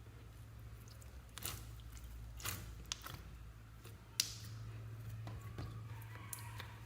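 Slime being squeezed and worked by hand, giving scattered wet squishes and sharp crackles, the loudest a little past the middle, over a steady low hum.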